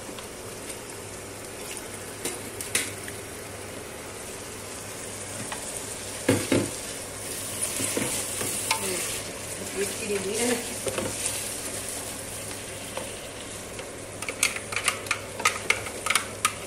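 Raw shrimp frying with onion, tomato and coriander in a large aluminium pot, a steady sizzle as they are stirred in with a wooden spoon. There is a single knock about six seconds in, and quick clicks and scrapes of the spoon against the pot over the last couple of seconds.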